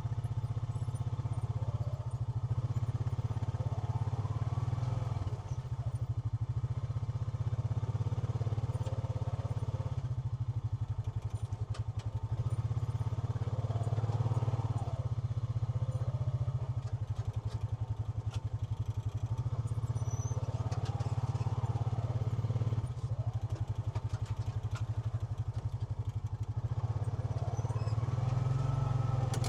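Honda Pioneer 520 UTV's single-cylinder engine running under load, revving up and easing off about four times as it strains against a rope tied to a storm-broken tree limb. The limb does not give.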